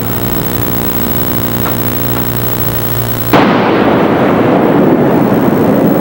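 A steady low engine hum, then about three seconds in a loud rushing roar of air-show jet engines overhead cuts in suddenly and carries on.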